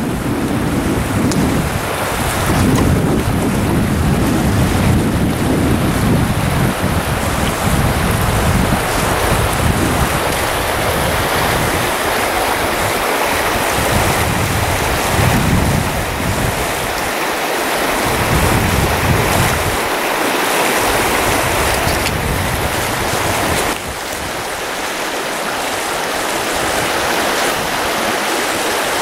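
Fast-flowing creek water rushing steadily, with wind buffeting the microphone in gusts. The level drops suddenly near the end.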